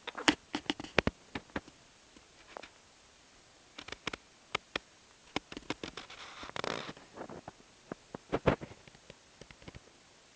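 Premature newborn's small mouth sounds: irregular soft clicks and smacks, with a short breathy snuffle about six and a half seconds in.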